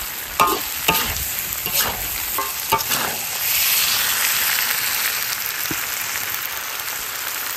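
Metal spatula scraping and clanking against a large wok while stir-frying chili peppers, pork and garlic sprouts, over steady hot-oil sizzling. The scrapes come several times in the first three seconds, then the sizzling swells and carries on.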